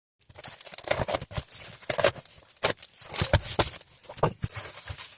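A well-wrapped parcel being torn open by hand: rustling and tearing of wrapping and tape, with irregular knocks and clicks of the contents being handled.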